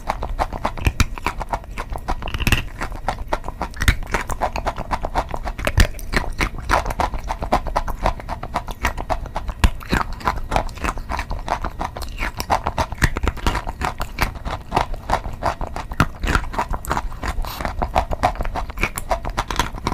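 Wet chalk being bitten and chewed: a dense, unbroken run of crackly crunches, several a second.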